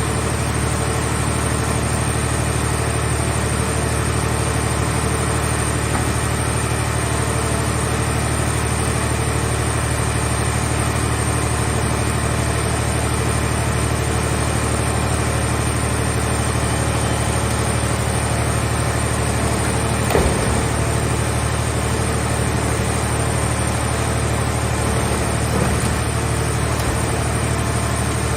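Power unit of a scrap car shell baler running steadily, a low even drone, with a short sharp sound about twenty seconds in.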